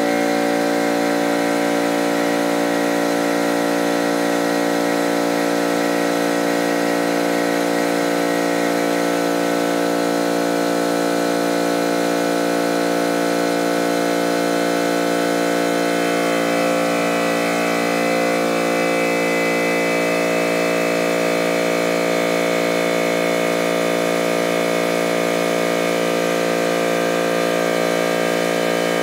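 A motor-driven machine starts abruptly and runs at a steady, unchanging hum with several pitches.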